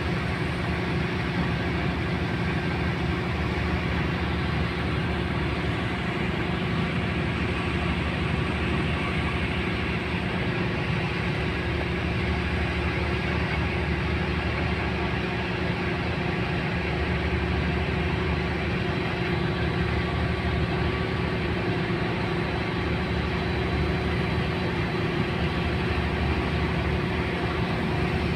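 Steady low drone of a marine diesel engine, running evenly without change, with a constant hum.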